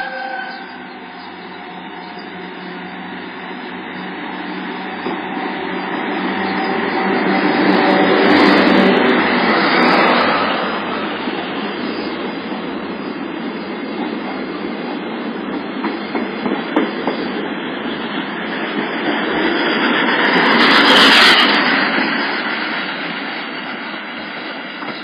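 Paleo Express train passing through a station at close range. The noise swells twice, about eight seconds in and again near twenty-one seconds, with wheels clicking rhythmically over the rail joints in between.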